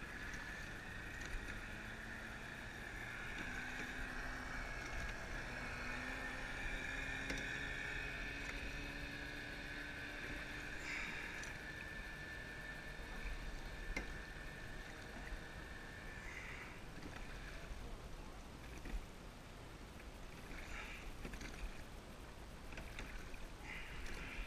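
Rowing shell under way: water rushing and gurgling along the hull and around the oars. A steady high whine runs over this for about the first two-thirds and cuts off suddenly, followed by a few short splashy sounds near the end.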